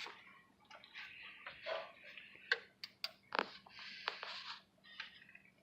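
Rustling and handling noise with a few scattered sharp clicks and knocks, irregular rather than rhythmic, as hand tools are moved about.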